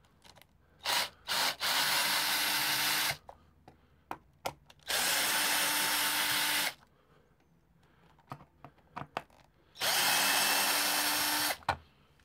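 Cordless drill-driver unscrewing the three screws that hold on a motorcycle air-box snorkel. It makes two quick blips and then three steady runs of about one and a half to two seconds each, with light clicks of handling between them.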